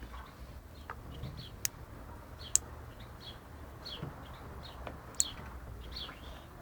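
Black-backed grosbeak (rey del bosque) giving a string of short, high chirps over a low hum, with three sharp clicks, the loudest sounds, about one and a half, two and a half and five seconds in.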